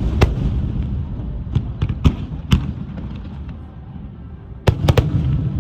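Fireworks shells bursting in a display finale: a run of sharp booms over a continuous rolling low rumble, about six in the first two and a half seconds, then three in quick succession near the end.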